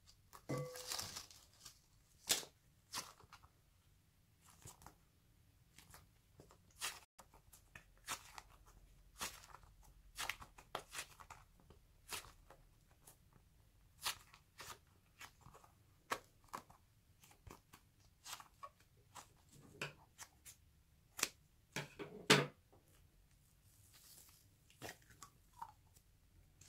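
Scissors snipping through the mesh net and rubber skin of a stress ball, with irregular crackles, snaps and rustling as the ball is handled and its skin pulled away from the filling.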